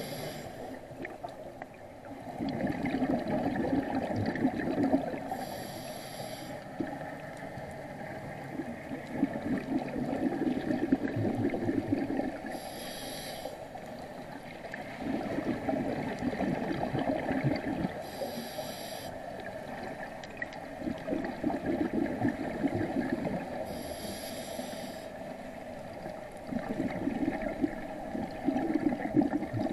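Scuba diver breathing through a regulator: a short hiss of inhalation about every six seconds, each followed by a few seconds of gurgling exhaled bubbles.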